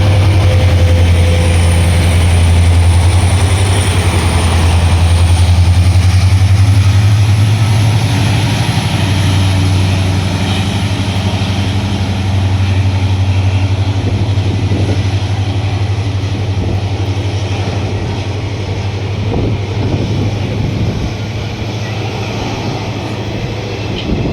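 Diesel locomotive engine running with a loud, steady, low hum and a faint high whine above it, growing gradually quieter over the second half.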